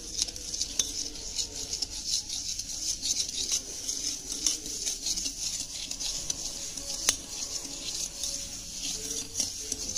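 Wire whisk beating sugar into oil in a steel pot: rapid scraping and clicking of the wires against the metal.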